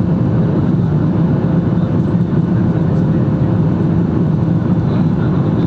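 Steady cabin noise inside a Boeing 737 MAX 8 climbing shortly after takeoff: a low rumble of its CFM LEAP-1B engines and rushing air, with a faint steady hum above it.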